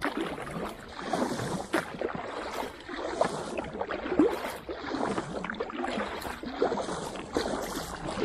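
Paddle strokes from an inflatable kayak on calm water: the blade dips, pulls and splashes about once a second, with water trickling and gurgling after each stroke.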